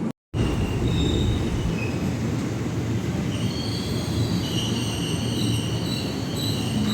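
Electric commuter train running through a station with a steady rumble. From about three seconds in, several high squealing tones from the steel wheels on the rails join it and keep breaking off and starting again.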